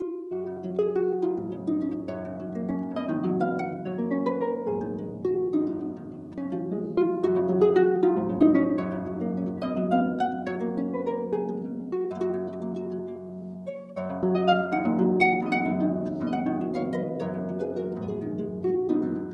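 Solo harp playing plucked notes and chords.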